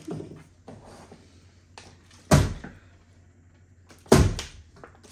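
Two dull thumps about two seconds apart, objects knocked or set down on a wooden table, with faint handling noise between them.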